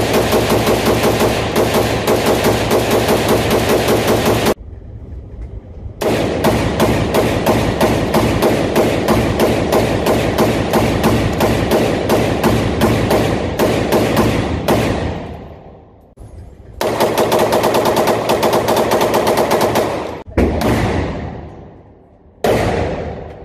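A firearm firing very rapidly in long, continuous automatic bursts. A burst of about four and a half seconds, a short pause, then a burst of about nine seconds, then a three-second burst and two short ones near the end. Each burst ends with a ringing echo as it dies away.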